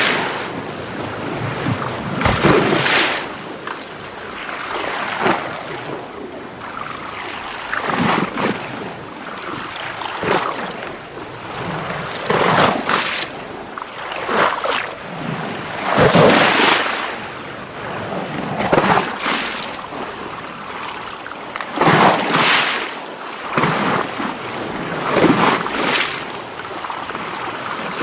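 Water sloshing and splashing in repeated surges every two to three seconds over a steady wash, like small waves lapping against a shore.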